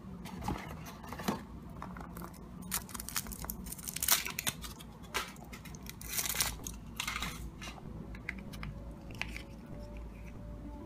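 Foil wrapper crinkling as it is peeled off a Kinder Surprise chocolate egg, then the thin chocolate shell cracking apart around the yellow plastic capsule. Irregular crinkles and crackles, the sharpest about four seconds in and again around six to seven seconds.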